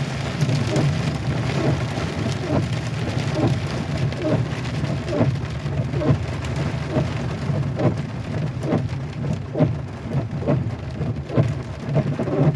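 Heavy rain beating on a pickup truck's roof and windshield, heard from inside the cab over the steady low drone of the truck driving.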